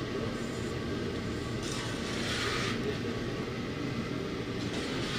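Long metal paddle stirring and scraping through dry, lumpy feed mix in a large iron kadhai, in short scraping bursts, about two seconds in and again near the end, over a steady low rumble.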